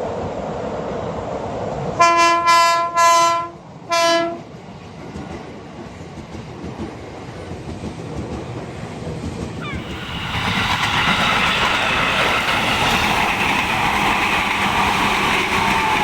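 KRL Commuter Line electric train sounding its horn in four short blasts, the greeting drivers give to trainspotters. From about ten seconds in, the train's running and wheel noise grows loud as it comes by.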